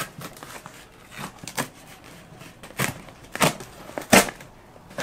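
Folding knife slitting packing tape and cardboard on a shipping box: a string of short, sharp cuts and scrapes at an uneven pace, the loudest two near the end.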